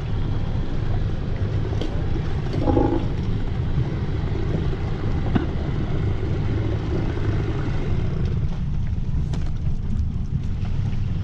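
A boat motor running steadily under way: a dense, even low rumble with no change in speed.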